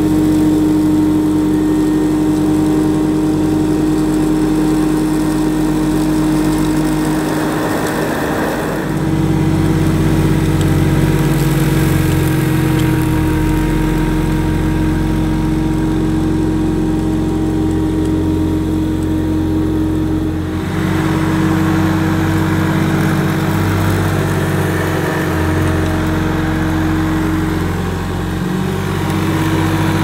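1973 Hoover Senior upright vacuum cleaner running over carpet: a steady motor hum with a sustained whine, the sound shifting in character about 9 and 21 seconds in.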